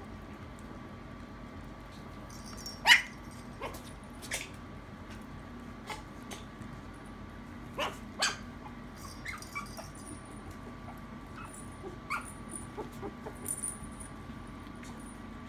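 Maltese puppies giving a scatter of short yips and small barks while they play, the loudest about three seconds in, over a faint steady hum.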